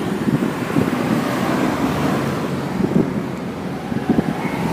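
Wind buffeting the microphone in irregular low gusts, over a steady rush of street traffic.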